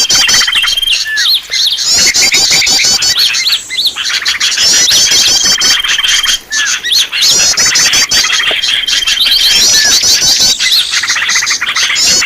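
A dense chorus of small songbirds chirping, trilling and whistling, used as a lure call for wild birds. Rapid trills, a held high whistle and quick series of upswept chirps recur every few seconds, as in a looped recording.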